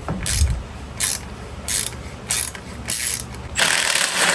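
Hand ratchet wrench clicking in about six short strokes, roughly one every two-thirds of a second, the last one longer, as a stock bolt is backed out.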